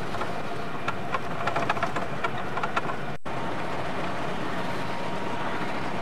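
Steady engine and road noise inside a moving car. There are a few light clicks or rattles in the first three seconds, and a momentary gap a little after three seconds where the recording cuts.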